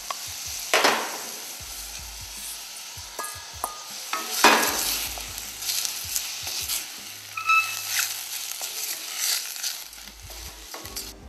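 Mushrooms and arborio rice frying in butter with chopped onion in a stainless pan, sizzling steadily as they are stirred with a wooden spoon. The sizzle surges loudly twice, about a second in and about four and a half seconds in.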